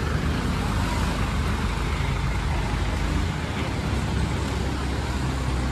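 Car driving along a town road, heard from inside: a steady low engine hum under the rush of tyres and road noise. The low hum shifts slightly about three seconds in.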